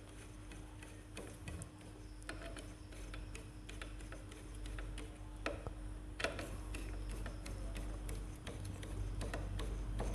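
Ratchet wrench clicking in short runs as the clutch spring bolts on a motorcycle clutch pressure plate are tightened down evenly, with a couple of sharper metal clicks a little past the middle. A steady low hum runs underneath.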